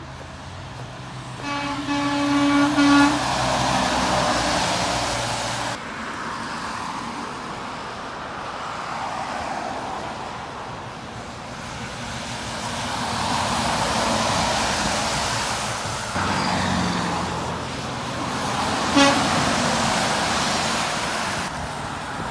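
Truck horn blasting once for about a second and a half, then a very short toot much later, over the rising and falling noise of passing traffic.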